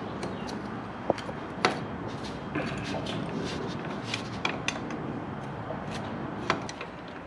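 Scattered metal clinks and knocks of hand tools and driveline parts being handled during driveshaft removal, over a steady low background noise. The sharpest knocks come about a second and a half in and again near the end.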